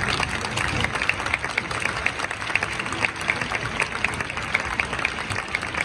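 Football supporters in a stadium's stands applauding: a scattering of many separate, sharp hand claps.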